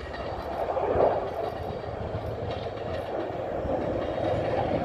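Double-stack intermodal freight train rolling along, a steady rumble of steel wheels on rail with faint clicks, briefly a little louder about a second in.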